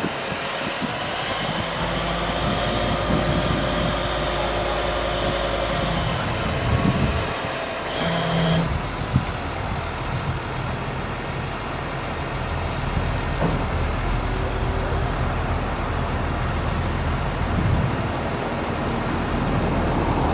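2001 GMC C7500 digger derrick truck running, with a steady whine from the hydraulics over the engine as the boom is raised and extended. The whine and hiss change about eight and a half seconds in, with a single sharp knock just after.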